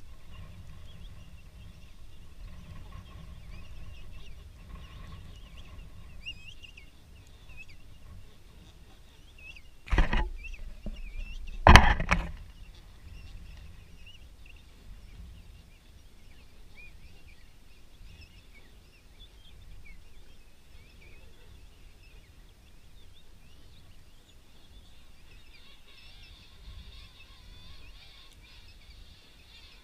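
King penguins calling in a colony: faint, wavering calls over a low wind rumble on the microphone. Two loud knocks about two seconds apart come near the middle.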